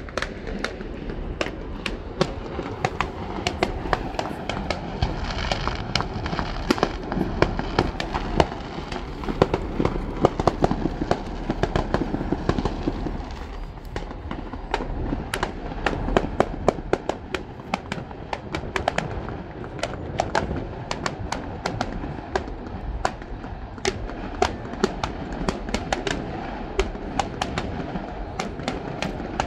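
Fireworks display going off: a rapid, continuous run of bangs and crackling pops, several a second.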